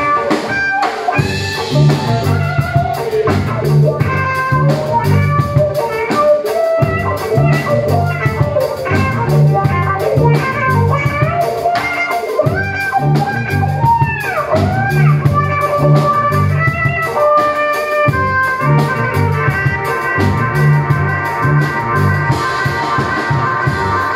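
Live violin played through effects pedals over a drum kit, with a low repeating line underneath and sliding violin notes about midway.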